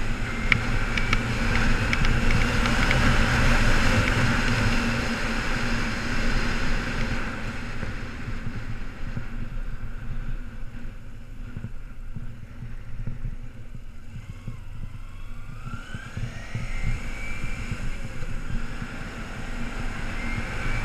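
2008 Kawasaki Ninja 250R's parallel-twin engine running under way. It is louder at first, then eases off and quietens around the middle. Near the end it climbs in pitch as the bike accelerates.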